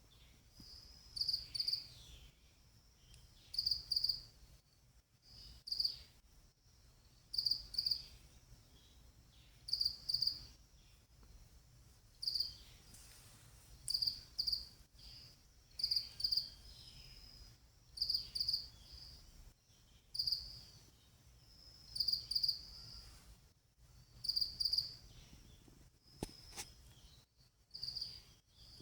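A cricket chirping: short high chirps of two or three quick pulses, repeating about every two seconds. A single sharp click comes near the end.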